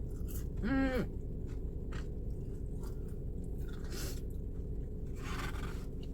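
A short hummed vocal sound from the eater just under a second in, followed by soft mouth and handling noises while eating: faint clicks and brief rustles over a steady low hum.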